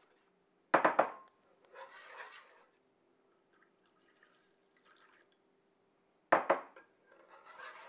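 Warm milk being poured into a butter-and-flour roux in a nonstick pan and whisked in to make béchamel. Two short, sharp clattering splashes come about a second in and again near the end, with faint liquid sounds between.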